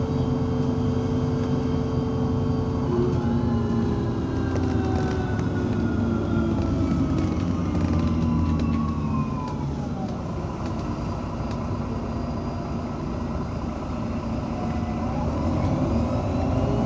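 Irisbus Citelis 18 articulated bus, with an Iveco Cursor 8 diesel and Voith D864.5 automatic gearbox, heard running from on board. Its steady drivetrain rumble carries a whine that falls slowly in pitch from about three seconds in, and a tone rises again near the end.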